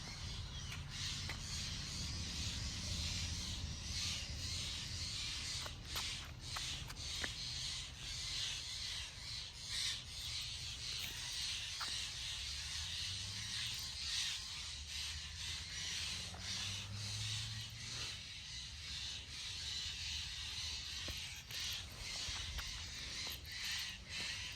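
Birds calling outdoors in a steady chorus, over a low rumble with scattered light clicks.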